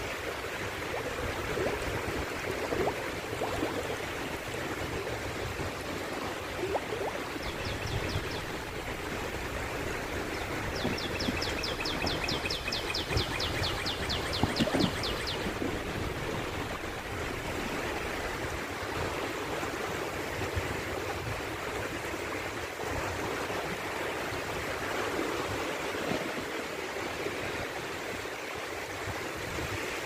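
Shallow sea water washing in over a flat shore, a steady rushing wash with a few small splashes. A high, rapid ticking trill comes in briefly twice near the middle.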